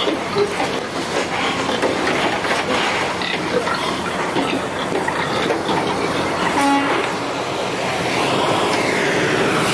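Pigs packed in a livestock transport trailer, grunting and squealing over a steady mechanical clatter and rattle, with a brief pitched tone about seven seconds in.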